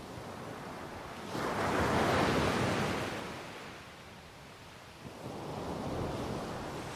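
Ocean waves breaking on the shore below: one wave crashes and washes out about a second in, fading within a few seconds, and a second, softer wave builds near the end, with some wind on the microphone.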